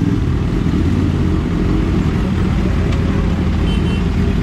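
Kawasaki Ninja H2's engine running steadily, a loud low rumble with no change in pitch.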